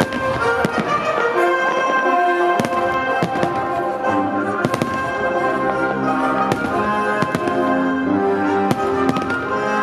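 Aerial fireworks display bursting: a quick run of loud, sharp bangs, about two or three a second, with festive music playing throughout.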